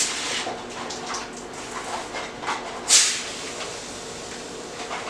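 Kitchen handling sounds: a sharp click as a stand mixer's tilt head is handled, then scattered knocks and a louder noisy rasp about three seconds in, over a faint steady hum.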